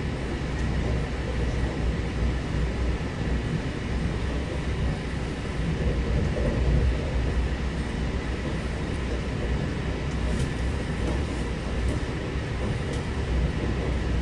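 Lastochka electric multiple unit running at speed, heard inside the passenger car: a steady rumble of wheels on rail, with a faint steady high tone and a few faint ticks near the end.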